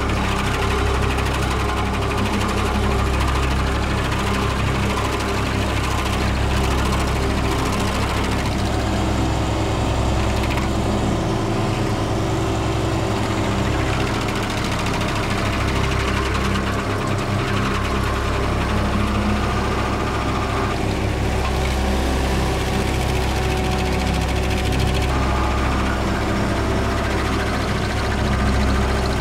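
Stump grinder running under load, its engine driving the toothed cutting wheel into a tree stump: a steady mechanical drone with a fine, rapid rhythm that shifts in texture a few times.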